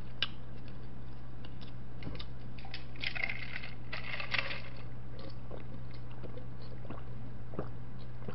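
Soft eating and drinking mouth sounds: chewing, then sips and swallows from a plastic cup, with a few small clicks over a steady low hum.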